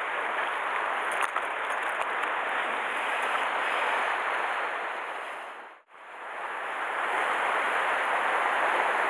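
Sea surf washing against shore rocks, a steady hiss of water. It fades away and comes back about six seconds in.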